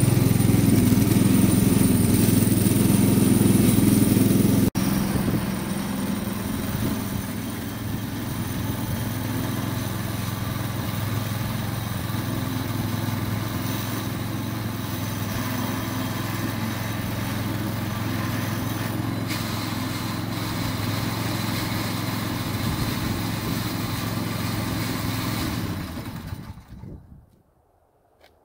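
Small single-cylinder engine of a two-stage snowblower running steadily, then winding down and stopping near the end.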